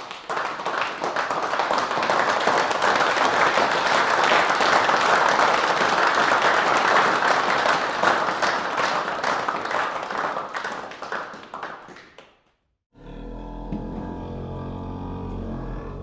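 Applause sound effect: a crowd clapping steadily, tapering off and stopping about twelve seconds in. After a short gap a low droning sound with several stacked tones starts.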